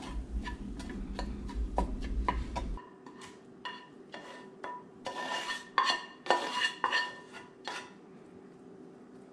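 Metal spatula stirring fried rice in a skillet, then scraping and knocking against the pan as the rice is scraped out into a bowl: a run of sharp clinks and scrapes, some of them ringing, busiest in the second half. A low hum under the first three seconds stops suddenly.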